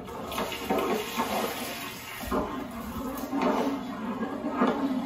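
Thin masala sauce splashing and sloshing as it is poured into a large cooking pot and stirred with a long ladle.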